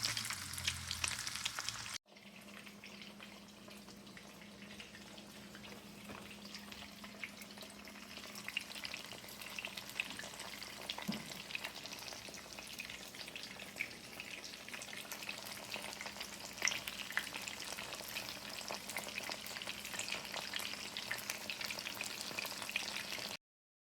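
Food frying in hot oil in a pan: a steady crackling sizzle. The sound breaks off about two seconds in and comes back quieter, then cuts off suddenly just before the end.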